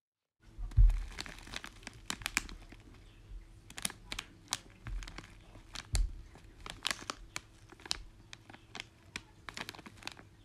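Packaging crinkling and rustling with many sharp clicks and crackles, and a low thump about a second in that is the loudest sound.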